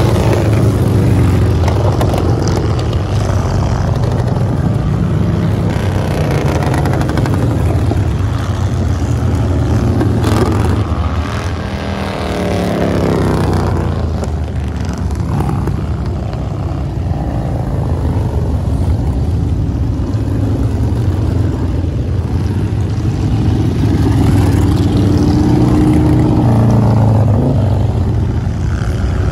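A procession of cruiser and touring motorcycles riding past one after another. Their engines run steadily, each rising and then falling in pitch as it goes by.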